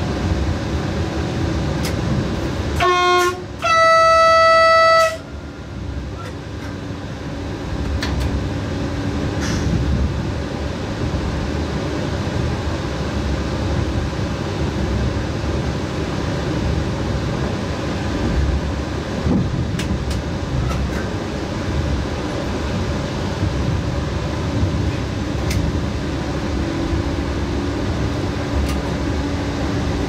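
Electric train's horn sounding twice from the cab: a short low note about three seconds in, then a louder, higher note lasting about a second and a half. Under it, the steady rumble of the train's wheels running on the rails.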